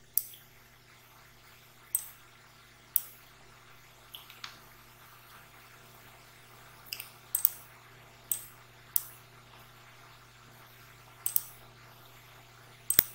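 Computer mouse clicking: about a dozen short, sharp clicks at irregular intervals, some in quick pairs, as fill colours and handles are picked in a drawing program. A faint, low, steady hum runs underneath.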